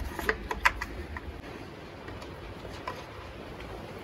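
A few light clicks and knocks of chainsaw parts being handled and taken off during dismantling, most of them in the first second or so and one more near the end.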